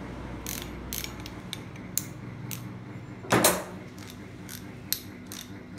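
Metal hand tools being handled and set down: scattered light clicks and clinks, with one louder knock about three and a half seconds in.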